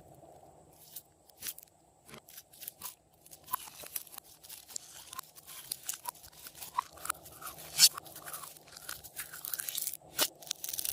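Slime being kneaded and squeezed by hand, with irregular crackling and popping clicks.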